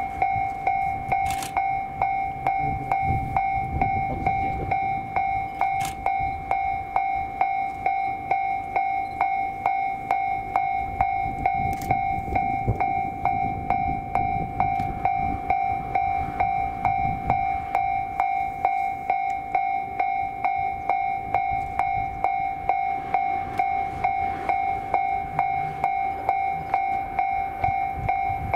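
Japanese railway level-crossing alarm ringing in a fast, even beat, with a train rumbling past through the first two-thirds or so.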